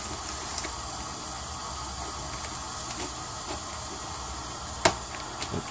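Scissors cutting and scraping along packing tape on a cardboard box: a few faint scrapes and ticks, then one sharp snap near the end, over a steady hiss.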